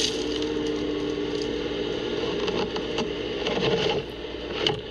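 Excavator engine and hydraulics running with a steady hum, with a toothless grading bucket scraping hard, gravelly dirt off the pit wall. The machine is labouring in the hard ground, and the hum drops in level about four seconds in.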